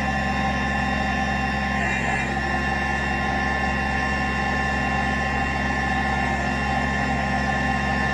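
Kubota BX23S compact tractor's three-cylinder diesel engine running steadily while its backhoe is worked, with a steady whine over the engine.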